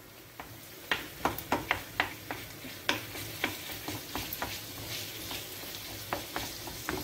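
Ground pork sizzling in hot fat in a frying pan while a wooden spoon breaks it up and stirs it, knocking against the pan about three times a second from about a second in, the knocks thinning out in the second half.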